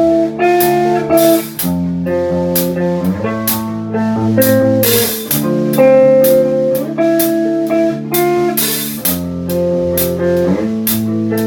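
Instrumental intro of a rock song: a guitar melody over bass and drum kit with regular cymbal hits, before the vocals come in.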